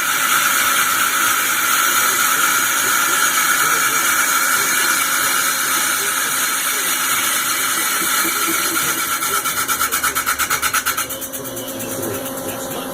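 Ikegai TUR 30L CNC lathe running: a steady hiss with a high whine, pulsing rapidly for a couple of seconds near the end, then dropping to a quieter, lower hum.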